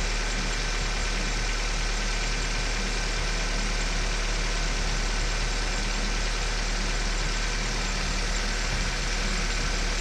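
A 2003 Pontiac Vibe's four-cylinder engine idling steadily, just started.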